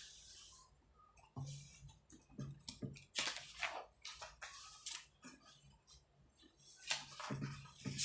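Sheets of paper rustling as pages of a thick document are turned and handled, coming in short irregular spells, louder about three seconds in and again near the end.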